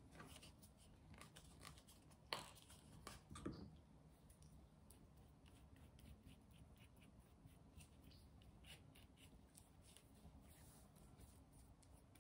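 Very faint handling sounds: a few soft knocks in the first few seconds, then light, scratchy strokes of a paintbrush spreading Mod Podge glue over a plastic charger tray.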